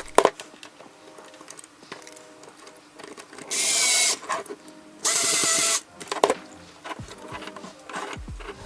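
Small electric screwdriver driving screws, running in two short bursts of well under a second each, about three and a half and five seconds in, with light clicks of handling between.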